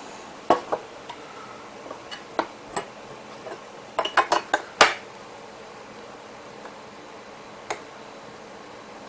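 Metal mobile-base parts clinking and knocking on a workbench as they are handled and set down. There are scattered single clicks, a quick run of about five about four seconds in, and one more near eight seconds.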